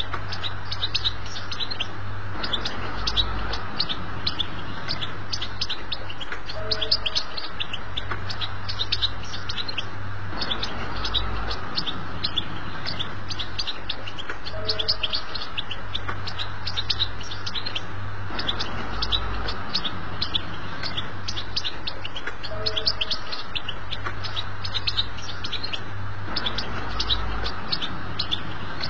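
European goldfinch twittering its soft, rapid chattering song (batbata), the kind used to tutor young goldfinches: a continuous stream of quick high chirps and trills. The same stretch of song recurs about every eight seconds, over a steady low hum.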